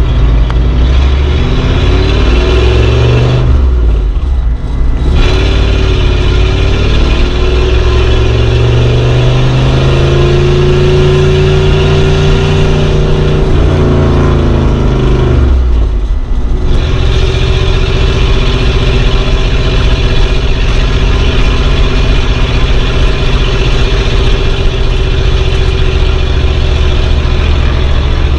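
Vintage car engine running under way. The engine note dips briefly about four seconds in and again at about sixteen seconds. Between the dips the pitch climbs as it accelerates, holds, then falls away, before settling to a steady run.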